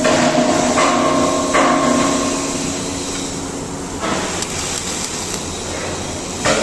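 Factory machinery on an impeller spot-welding production line running: a steady mechanical hum whose tones shift abruptly every second or so, with knocks mixed in.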